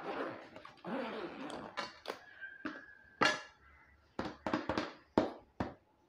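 A fabric-and-mesh bird travel carrier being handled: rasping rustles for the first two seconds, then a run of sharp clicks and knocks, the loudest a little after three seconds in.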